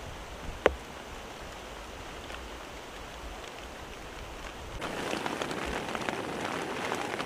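Rain falling, with individual drops ticking through it. A single sharp tap comes about a second in, the loudest sound. About five seconds in, the rain turns abruptly louder and denser.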